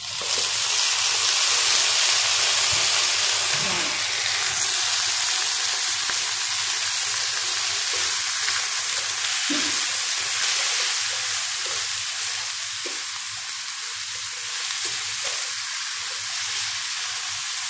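Sliced bottle gourd hitting hot oil in a stainless steel frying pan: a loud sizzle that starts suddenly and slowly eases while a spatula stirs the pieces.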